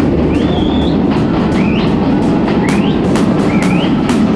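Passenger train running through a tunnel, with a loud, steady rumble of wheels on rail and rapid regular clacks. A short rising high-pitched squeal repeats about once a second over it.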